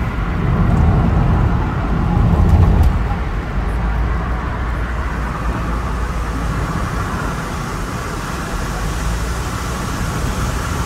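Road noise heard from inside a moving car on a wet road: a steady rumble of engine and tyres, louder during the first three seconds.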